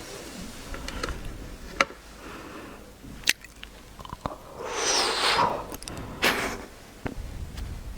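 Someone biting and chewing wax candy sticks: a few sharp clicks, then a longer noisy stretch of chewing about five seconds in and another short burst after it.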